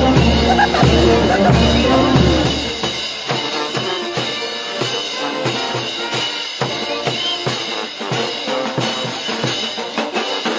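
A brass band plays carnival dance music. About three seconds in, the low horns and bass drop out, leaving mostly snare and bass drum beating a steady rhythm with fainter instruments above.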